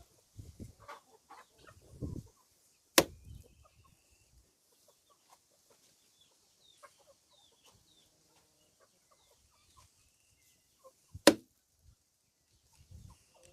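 Two sharp knocks about eight seconds apart, with birds chirping faintly between them.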